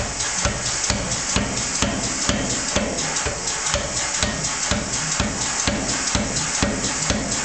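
Power hammer striking a red-hot iron bar end held in a rounding die, steady blows at about two a second over a constant hiss.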